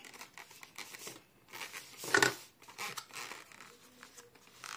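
A zippered nylon soft case being opened one-handed: scratchy zipper pulls and fabric rustling, with one louder bump about two seconds in.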